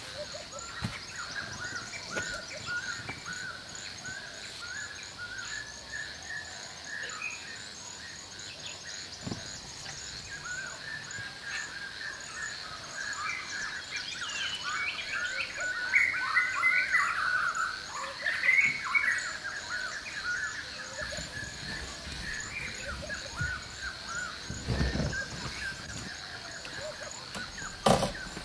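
Forest birds chirping and trilling, busiest about halfway through, over a steady high insect buzz with a short high chirp repeating evenly. A sharp knock near the end.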